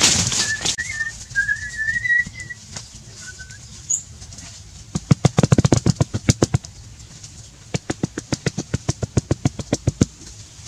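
Hands patting and pressing grass turf into damp soil: a quick run of sharp, dull taps, several a second, starting about halfway through. A bird chirps briefly near the start.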